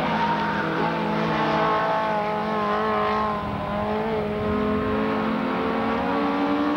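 Several Minirod race car engines running hard together, their pitches shifting slowly up and down as the pack laps the circuit.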